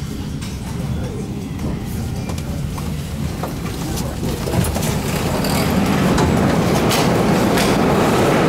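Metro train rumbling on the station track, its noise building from about halfway through, with a few sharp clicks and passengers' chatter on the platform.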